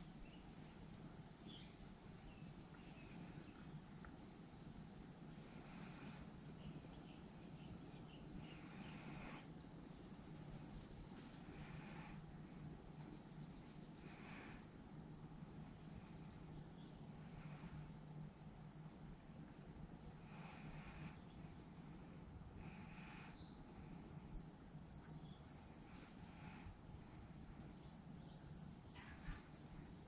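Faint, steady high-pitched chirring of insects in thick vegetation, with a few faint short rustles now and then.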